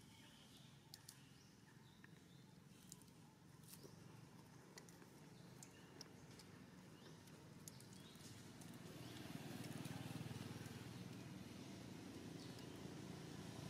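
Quiet outdoor ambience with faint scattered ticks and chirps. About two-thirds of the way through, the low rumble of a distant engine vehicle slowly grows louder.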